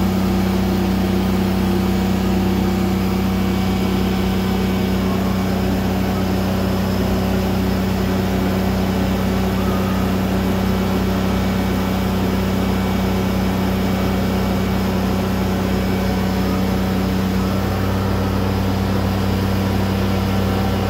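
Steady low machine hum with a buzzing tone from the welding equipment during TIG welding of a stainless slip-on flange to a pipe; the tone changes slightly near the end.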